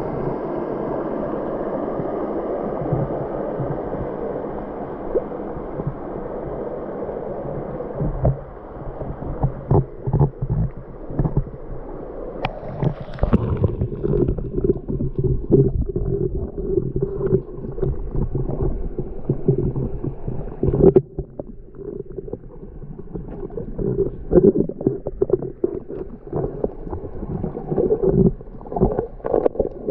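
Water of a small forest-stream waterfall: a steady rush at first, then from about eight seconds in a muffled, choppy gurgling with the high end gone, as heard underwater.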